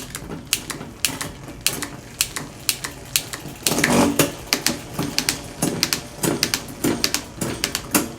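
Mountain bike drivetrain running as the rear derailleur shifts the chain across the cassette cogs, giving a string of sharp clicks with a denser rattle about midway. The shifting is crisp now that the cable tension and limit screws are set.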